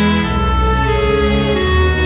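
Background music: slow sustained instrumental notes, soft and sad in mood.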